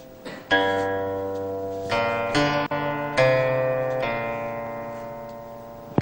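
Background music: a plucked string instrument playing a few slow notes, each struck sharply and left to ring and fade.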